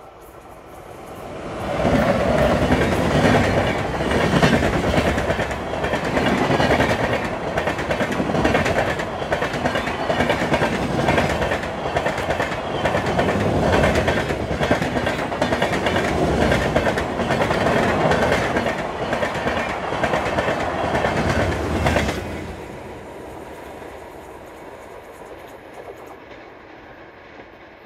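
Passenger train hauled by a WAP-7 electric locomotive and LHB coaches passing at speed: a loud rumble with steady clickety-clack of wheels over rail joints. It builds over the first two seconds, drops off sharply about 22 seconds in, and fades to a fainter rumble.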